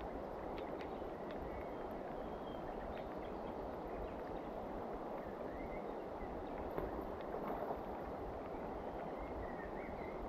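Steady rain falling on the river and bankside leaves, a continuous even hiss, with a few faint bird chirps.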